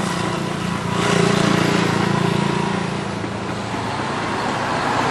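Motor vehicle engine running steadily, with road traffic passing; a vehicle grows louder about a second in and fades away.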